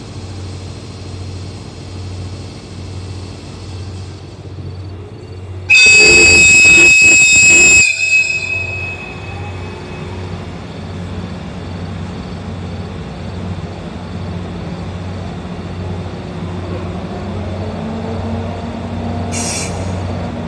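EF64 1000-series electric locomotive standing with a steady hum, then about six seconds in a long, high-pitched whistle blast of about two seconds: the departure signal. Afterwards the locomotive starts pulling away, with faint tones slowly rising in pitch.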